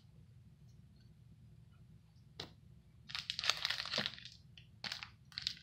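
Foil trading-card pack wrapper being handled: a click, then about a second of crinkling and crackling, then two short crackles near the end.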